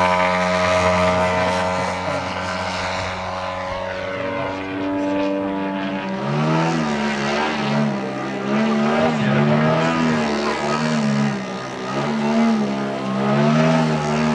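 Engine and propeller of a large radio-controlled aerobatic model airplane running hard as it takes off and climbs, its pitch sagging slowly. From about six seconds in the pitch rises and falls again and again as the throttle is worked through vertical manoeuvres.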